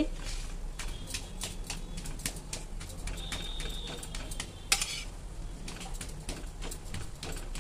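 Slotted metal spatula scraping and clicking against a metal kadhai while stirring and roasting crumbly khoya, with irregular rapid clicks and one sharper knock a little past halfway.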